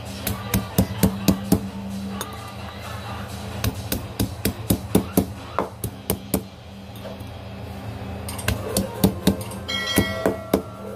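Garlic cloves being crushed with a hand-held stone pestle on a wooden board: runs of sharp knocks, several a second, with pauses between. Piano music comes in near the end.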